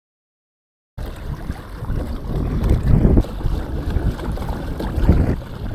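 Wind rumbling and buffeting the microphone over open water, with a faint wash of water. It cuts in suddenly about a second in and surges in two strong gusts.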